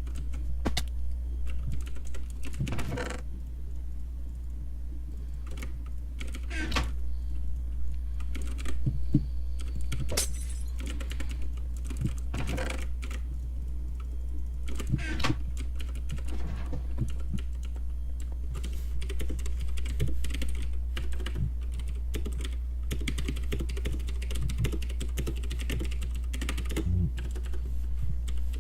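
Typing on a computer keyboard: irregular runs of key clicks with a few louder strokes, over a steady low hum.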